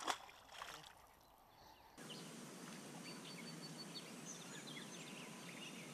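Faint outdoor background: a steady hiss with scattered faint bird chirps and a short run of high repeated notes.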